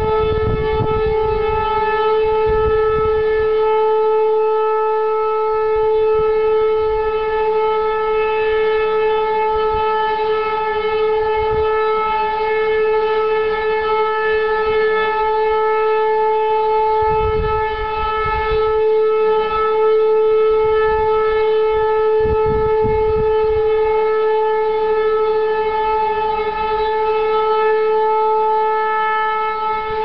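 Civil-defence air-raid sirens sounding the all-clear (Entwarnung), one long, unwavering tone. Near the start a second siren rises in pitch to join it.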